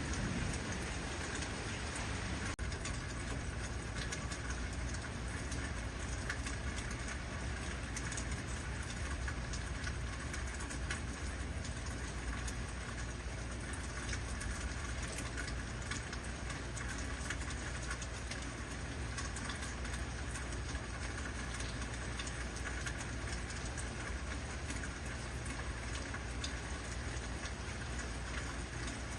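Steady heavy rain falling, many separate drops ticking over a continuous hiss, with a steady low rumble underneath.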